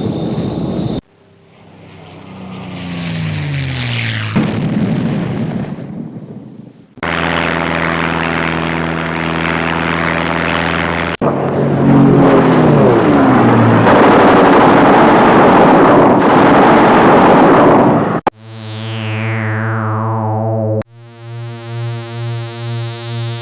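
A run of separate aircraft sound effects cut one after another: an aeroplane flyby that swells and fades with falling pitch, a steady propeller engine drone, and a second, louder flyby passing with falling pitch. About two-thirds of the way in it switches to a synthesized falling whistle, then a pulsing synthesized tone.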